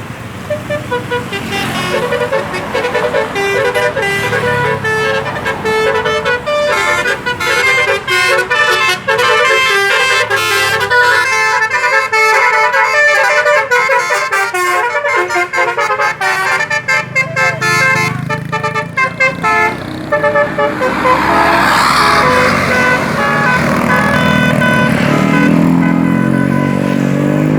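Bus 'telolet' Basuri horn, a multi-trumpet melody air horn, playing a quick tune of short notes. After about twenty seconds the tune gives way to a noisier rush, and a rising tone comes in near the end.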